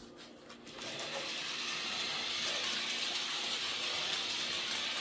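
Adventure Force RC mini truck's small AA-battery electric motor and plastic gears whirring as it drives across a laminate floor, starting about a second in and then running steadily with a high whir.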